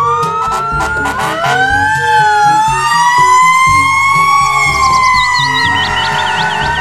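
Fire engine siren wailing, with several slow rising and falling tones overlapping and a quick warble near the end, over background music.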